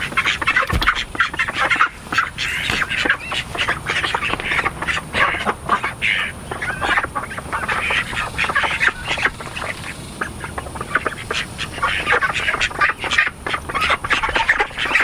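A flock of Australian spotted ducks quacking continuously, many short calls overlapping, as they forage for worms in freshly turned soil.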